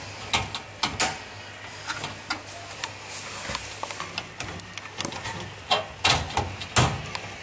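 Irregular plastic clicks and knocks as an LED tube light is handled and fitted into its mounting clips, with the loudest knocks coming close together near the end.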